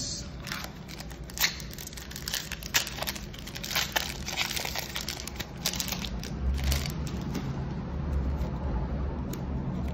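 The foil wrapper of a Magic: The Gathering draft booster pack being torn open and crumpled by hand: a run of sharp crinkles and crackles through the first several seconds.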